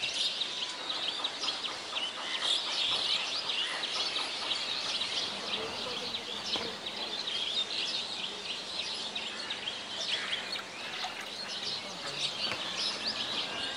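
Many small birds chirping, their short high calls overlapping in a steady chorus.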